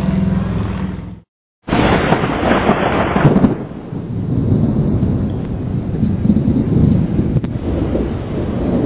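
Thunder rumbling low and long in a storm, swelling and fading, with rain or wind hiss. About a second in, the sound drops out briefly. It comes back with about two seconds of loud hiss before the rumble takes over.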